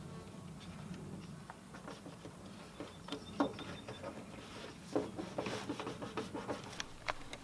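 Hands handling a sticker on an aluminium box: paper backing rustling and fingers rubbing and tapping on the metal lid, in scattered small clicks that come thicker in the second half.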